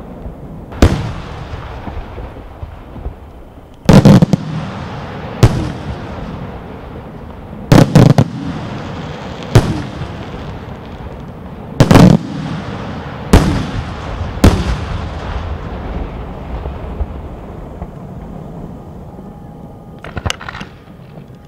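Aerial firework shells bursting overhead: a string of heavy bangs, about one every one to two seconds, each trailing off in a long echo. The bangs stop about fifteen seconds in, and a quick cluster of small crackling pops follows near the end.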